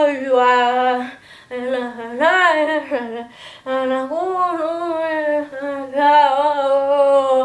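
A teenage boy singing unaccompanied in three phrases, the last a long held note of about three and a half seconds.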